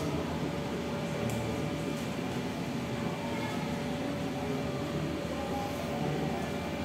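Steady room ventilation hum and hiss, with a faint steady whine held throughout.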